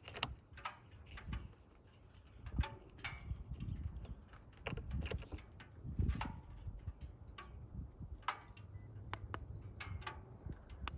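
Scattered clicks and rattles of battery-tester spring clamps and their cables being handled and clipped onto car battery terminals, over a low background rumble.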